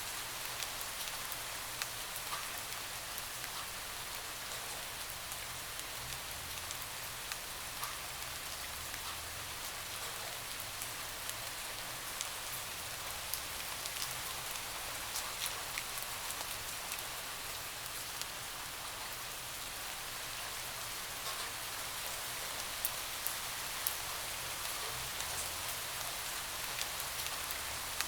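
Rain falling steadily on a window: a constant hiss with scattered sharp taps of single drops.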